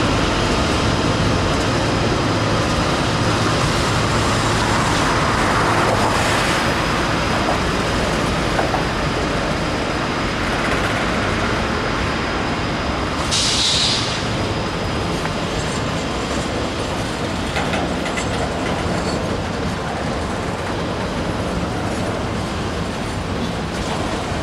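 Double-stack intermodal container cars of a freight train rolling past, a steady rumble and clatter of steel wheels on rail. A brief high hiss cuts in a little past halfway.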